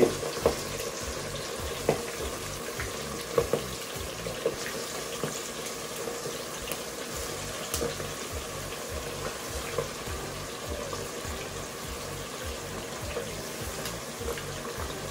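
Chicken wings deep-frying in oil brought up to frying temperature in a stainless steel pot: a steady sizzle, with a few short, sharp pops in the first five seconds as more wings go in.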